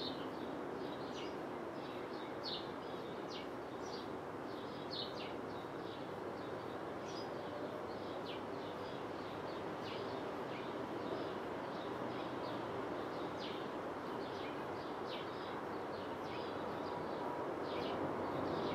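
Distant jet engine noise of an approaching Airbus A330-300 on final approach, a steady rumble that slowly grows louder near the end. Small birds chirp repeatedly over it.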